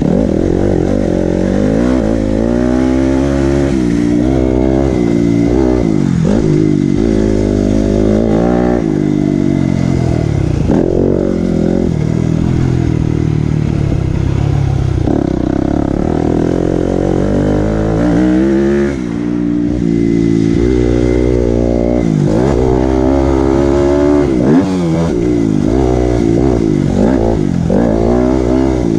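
Dirt bike engine heard from on board, its pitch climbing and falling again and again as the throttle is opened and closed. The sound drops briefly about two-thirds of the way in.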